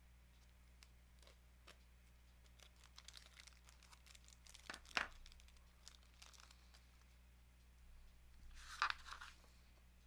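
Faint handling of small parts: scattered light clicks and taps, with two brief rustling scrapes about halfway through and near the end, as the penny, rivet and rivet tool are got out and handled.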